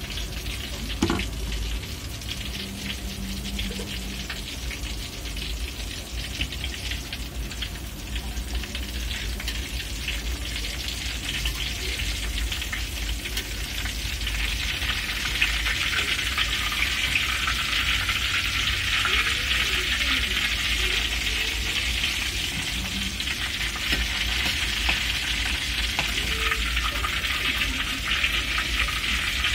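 Hot oil sizzling steadily in a wok around a frying tofu-and-egg fritter. About halfway through the sizzle grows louder as a spatula and slotted ladle work under the fritter and lift it out of the oil to drain.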